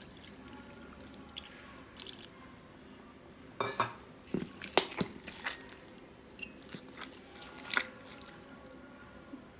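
Milk poured onto cooked rice in a steel bowl, then a steel ladle mashing and stirring the wet rice: squelching with sharp clicks and scrapes of the ladle against the bowl, most of them from a few seconds in.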